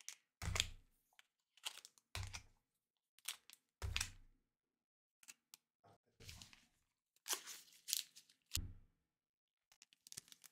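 Foil wrappers of Pokémon trading-card booster packs crinkling in gloved hands as the packs are shuffled and handled, in about a dozen short rustles. Several come with a dull knock as the packs are tapped or set down on the table.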